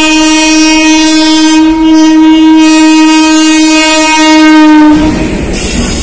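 Electric locomotive horn sounding one long, steady blast that cuts off about five seconds in. It gives way to the rumble and clatter of a container freight train passing close by.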